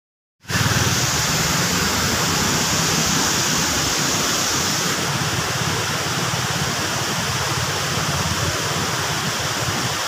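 Steady rushing of falling water, starting abruptly about half a second in and holding even throughout.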